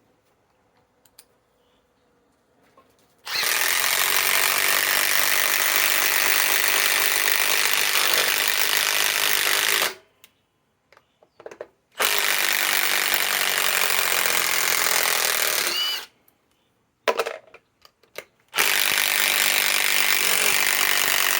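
Milwaukee M18 Fuel 3/8-inch compact impact wrench hammering 4-inch TimberLOK structural screws into hard wood through a socket adapter. After a quiet start it runs in three long bursts of several seconds each, with short pauses and a couple of brief trigger blips between them.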